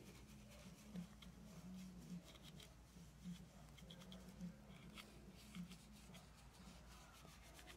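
Faint, soft scratching and light taps of a flat paintbrush dusting mica powder inside a silicone mold, under a faint low hum.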